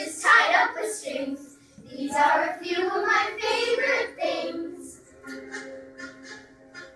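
A group of children singing together; about five seconds in the singing gives way to quieter music with steady held notes and light ticking.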